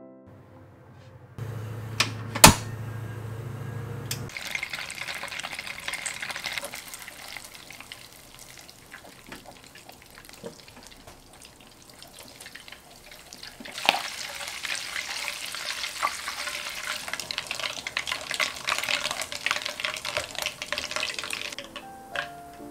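Butter sizzling and crackling in a stainless saucepan while being stirred with a wooden spoon, being cooked down to brown butter; the crackle grows much louder from about halfway through and stops just before the end. Near the start there is a low hum with two sharp clicks.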